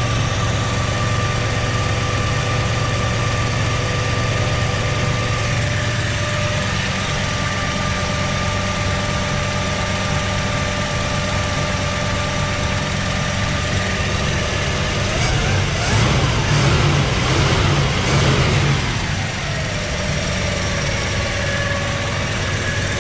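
Chevrolet small-block V8 engine in a 1964 El Camino idling quietly and steadily under the open hood. The engine note rises and falls briefly about two-thirds of the way through.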